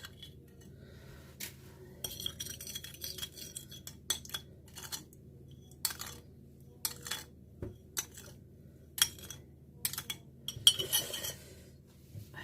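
A metal spoon clinking and scraping against a glass in irregular light taps, stirring sugar into onion juice; the loudest clinks come near the end.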